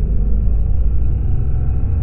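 Steady low rumble of a BMW R1200GS motorcycle on the move, its boxer twin engine running under the riding noise.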